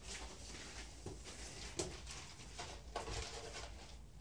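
Rustling and handling noises, with a sharp click a little under two seconds in and another sudden rustle about three seconds in.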